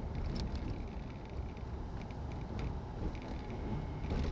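A car running, heard from inside the cabin as a steady low rumble, with a few faint ticks.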